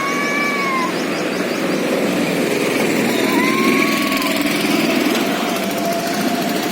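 Cats yowling in a standoff: one long drawn-out yowl ends about a second in, then a higher yowl and a lower, long drawn-out yowl start about halfway through. Under them runs a steady, engine-like drone.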